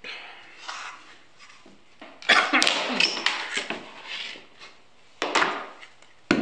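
Wooden epoxy-casting molds and clear plastic storage bins handled on a wooden workbench: a clatter of plastic and wood knocks about two seconds in, then two sharp knocks near the end.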